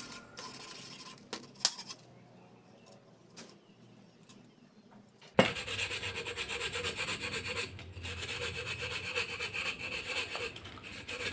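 Sandpaper rubbed in quick back-and-forth strokes over the cut rim of a glass bottle, smoothing and bevelling the sharp edge. It starts suddenly about halfway in, after a few faint clicks and a near-silent stretch.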